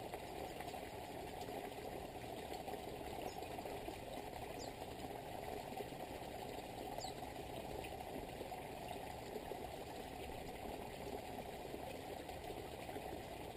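Small garden-pond waterfall spilling over rocks into the pond: a steady, even rush of water, with a few faint high chirps over it.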